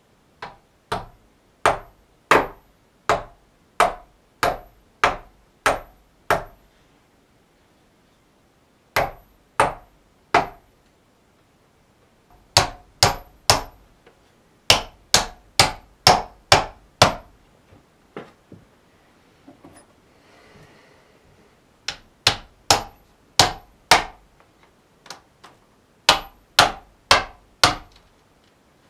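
Hammer driving nails through a wooden stick coat rack into a wall: sharp blows about one and a half a second, each with a short high ring, in five runs separated by brief pauses.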